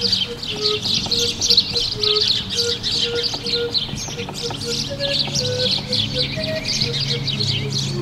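Many birds chirping rapidly and without a break, high-pitched, with a string of short, lower notes stepping up and down in pitch underneath.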